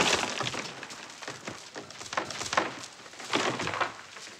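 A scuffle: a series of rattling, clattering crashes as bodies tumble through and tear at strings of beads, loudest right at the start, with more bursts about two and three and a half seconds in.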